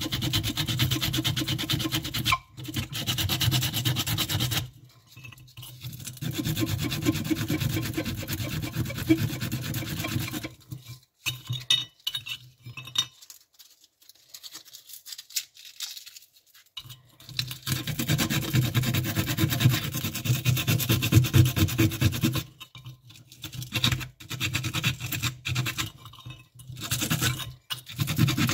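Quick, repeated scraping and rubbing strokes as a small metal part is scrubbed by hand with an abrasive over a ceramic plate, working dark residue off it. The scrubbing comes in long runs with short breaks and stops for a few seconds about halfway through.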